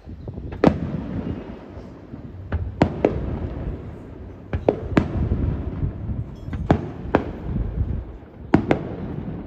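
Aerial firework shells bursting: about ten sharp bangs at uneven intervals, several in quick pairs, each followed by a low, echoing rumble.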